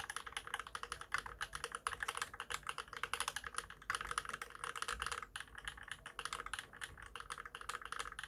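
Fast, steady typing on a Monstargear XO v2 mechanical keyboard with Holy Panda tactile switches lubed with Krytox 205g0, 65g TX springs, GMK stabilizers and GMK keycaps. The keystrokes come many times a second.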